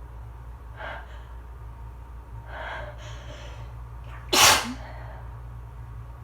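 Allergy sneezing: a faint breath about a second in, two noisy breaths building up, then one loud, sharp sneeze a little past four seconds in.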